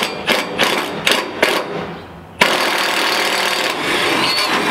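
A series of quick sharp clicks, then about halfway through a power drill starts suddenly and runs steadily, boring a bolt hole into the trailer, with a high wavering squeal from the bit near the end.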